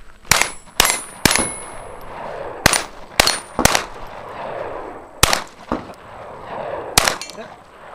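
Handgun shots: about eight or nine sharp cracks fired in quick groups of two or three, roughly half a second apart, each with a short echo.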